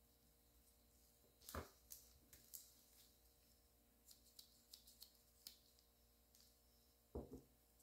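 Quiet handling sounds of gloved hands working small plastic cosmetic containers and a squeeze bottle on a table: a sharp knock about a second and a half in, a run of light clicks and taps in the middle, and a duller knock near the end.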